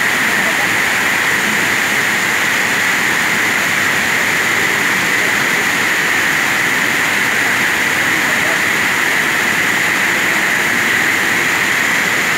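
Swollen, fast river rushing and churning in white water: a loud, steady hiss that never lets up.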